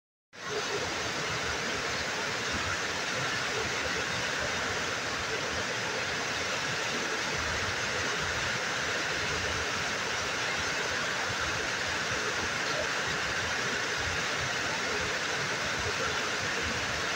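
Small waterfall pouring over a rock ledge into a pool: a steady, unbroken rush of falling water.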